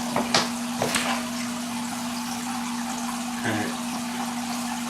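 Steady trickling and running water from a saltwater aquarium's circulation, with a constant hum, and a few sharp clicks in the first second.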